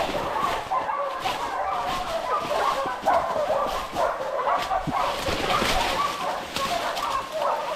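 A pack of hunting dogs barking and baying continuously, many voices overlapping, with leaves and branches rustling close by as someone pushes through thick brush.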